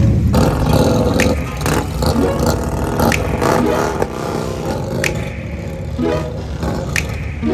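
Motorcycle engines running and revving, mixed with music.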